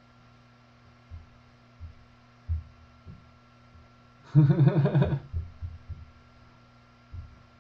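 A man's short laugh about four seconds in, over a steady electrical hum, with a few soft low thumps before and after it.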